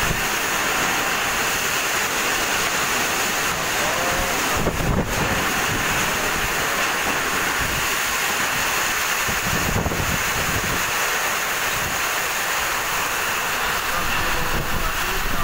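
Heavy rain pouring and strong wind gusting in a whirlwind storm: a steady rushing noise, with wind buffeting the microphone in heavier gusts about five and ten seconds in.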